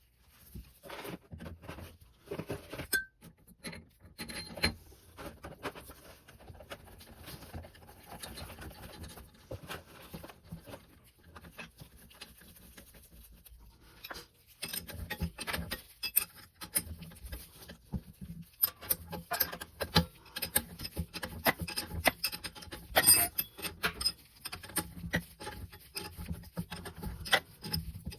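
Irregular clicks, taps and metallic clinks of hand tools and small metal parts being handled on an oil burner, busier from about halfway through.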